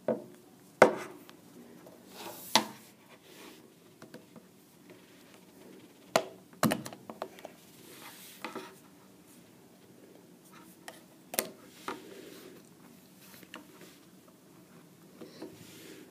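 Plastic clicks and knocks of a BlackBerry Bold 9900 being handled on a wooden table while its battery cover is unclipped and lifted off. The sharp clicks are scattered, the loudest about a second in and a cluster around six to seven seconds, with lighter ones later.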